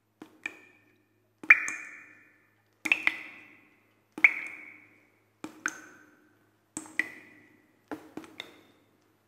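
A slow, even series of short ringing pings, about one every 1.3 seconds. Each is a quick double tap that rings out for about half a second.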